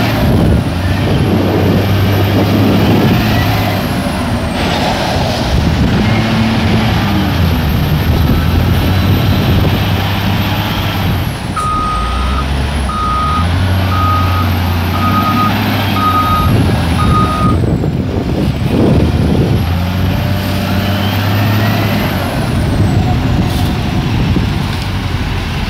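Caterpillar wheel loader's diesel engine running and revving as it digs and loads, with a faint high whine rising and falling. About halfway through, its reversing alarm sounds a run of short beeps, about one a second.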